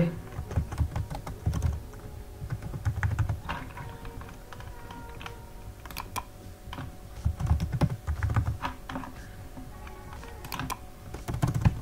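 Typing on a computer keyboard in bursts of quick key clicks, with pauses between them: names being entered into form fields.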